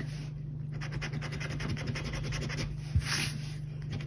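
Scratchcard latex being scratched off in quick, rapid back-and-forth strokes.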